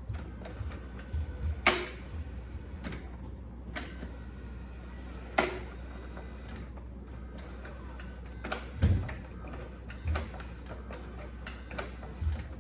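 Scattered clicks and small knocks from a caravan slide step controller module as its magnetic door switch is worked, with two sharper clicks early and a few dull knocks later, over a steady low hum.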